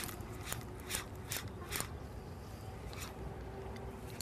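A series of sharp ticks, about two to three a second, thinning out after about two seconds with one more near three seconds in, over a steady outdoor hiss.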